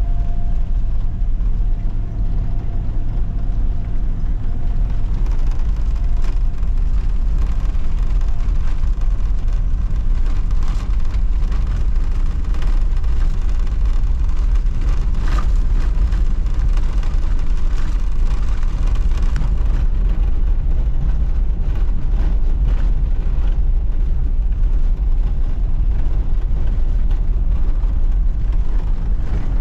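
Steady road and engine noise of a vehicle being driven.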